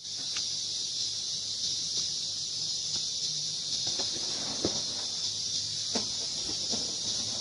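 Steady high-pitched drone of insects, with a few faint short clicks in the second half.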